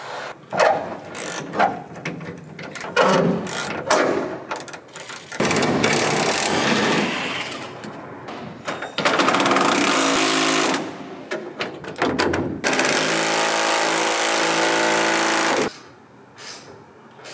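Cordless drill-driver running in three long bursts of a few seconds each, taking out screws and bolts from a Land Rover's body. It is preceded by a run of knocks and metal clanks as the parts are handled.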